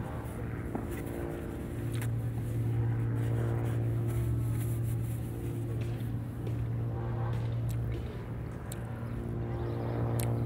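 A steady, low engine hum that holds one pitch throughout, with a few faint clicks over it.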